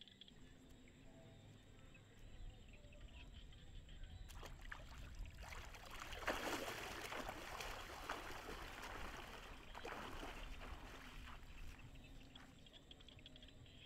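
Splashing and sloshing of shallow floodwater as a person wades through it. It starts about four seconds in, is loudest near the middle, and dies away a couple of seconds before the end.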